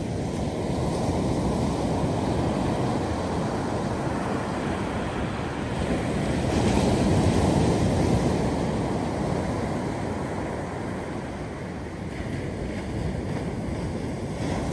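Ocean surf breaking and washing up a sandy beach: a continuous rushing wash that swells louder about halfway through as a wave breaks.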